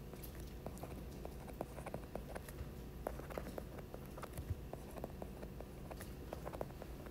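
Stylus tapping and scratching on a tablet's glass screen during handwriting: a string of faint, irregular clicks over a steady low hum.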